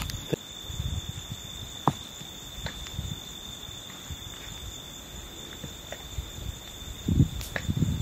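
Crickets trilling in one unbroken high note, with scattered faint clicks and low rumbling bumps that get louder near the end.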